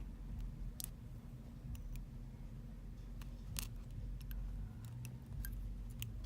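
Scattered light clicks and taps of small metal tools and phone parts being handled during an iPhone XR repair, about a dozen at irregular spacing, over a steady low hum.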